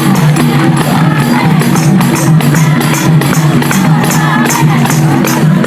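Loud Nepali Teej dance music with a steady beat, a repeating bass line and jingling percussion.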